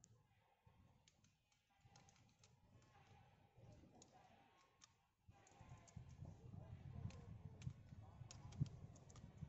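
Faint scattered clicks and ticks of a small tool and the saw chain as the chain tension is adjusted by hand on a grinder-mounted chainsaw attachment, with a low rumble from about five seconds in.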